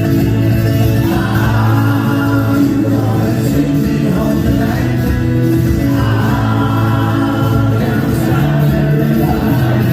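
Live band music with several voices singing together.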